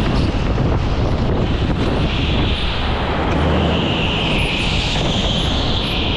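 Indoor rental go-kart running at speed, heard from the driver's seat: a steady, loud drive noise with a high hiss that swells and fades twice.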